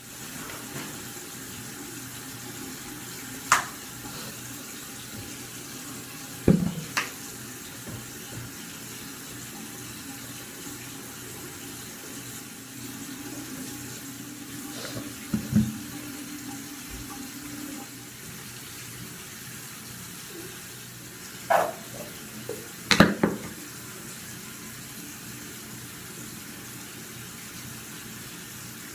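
Bathroom sink tap running steadily into the basin. A handful of sharp knocks sound over it, the loudest two close together about three quarters of the way through.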